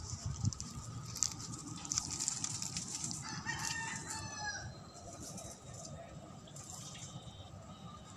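A rooster crowing once, a falling call of about a second and a half a little past the middle, over rustling of leaves and handling noise.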